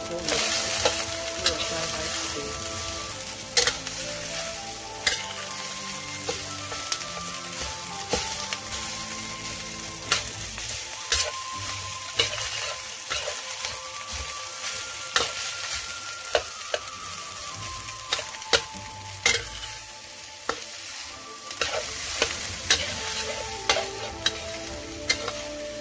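Leftover rice and scrambled egg sizzling in a metal wok while a metal spatula stirs and scrapes through it, with frequent sharp clicks of the spatula against the pan.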